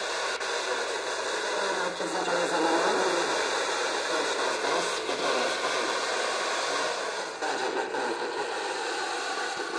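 Handheld FM radio receiver's speaker giving steady static hiss while it is tuned up the band around 94 MHz. The signal is too weak to hold a station, so it plays inter-station noise.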